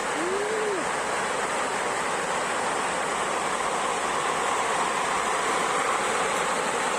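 Steady rush of falling water from a waterfall, even and unbroken, with a short rising-and-falling tone about half a second in.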